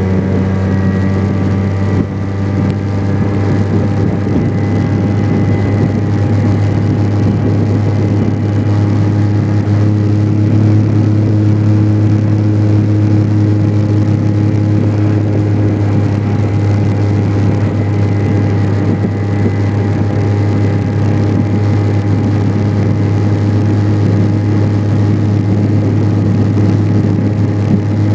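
Vespa PX 125's single-cylinder two-stroke engine running steadily as the scooter cruises along an open road, with a noisy rush of wind and road over it. The sound dips briefly about two seconds in, then holds steady.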